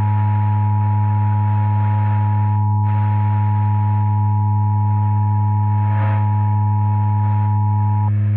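Emergency Alert System attention signal: two steady tones sounding together, the 853 Hz and 960 Hz dual tone, held for about eight seconds and cutting off shortly before the end. Underneath runs a loud, steady low electrical hum.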